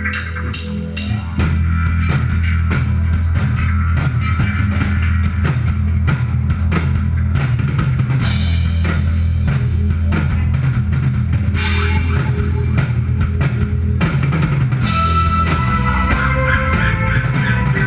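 Live band music with drum kit, heavy bass and guitar; the full band comes in louder about a second and a half in, with cymbal crashes three times along the way.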